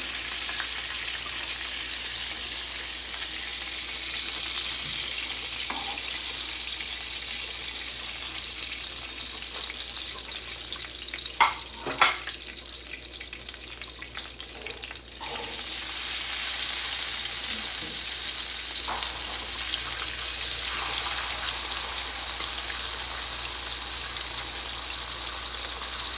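Hot oil sizzling steadily in a nonstick frying pan, with two sharp clicks a little before halfway. A little past halfway the sizzle jumps louder and brighter as slices of sweet ham fry in the oil.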